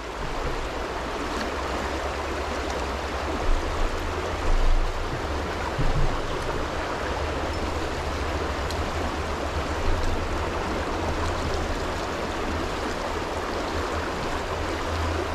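Shallow, rocky river running fast over stones: a steady rush of flowing water, with a few brief low thumps in the first half.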